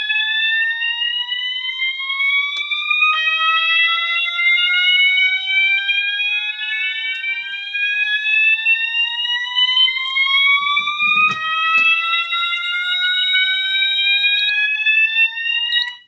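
Fire alarm signals sounding in alarm, loud: a rising sweep tone that climbs in pitch over about five seconds and then starts again low, with two or more signals out of step overlapping. It cuts off suddenly at the very end.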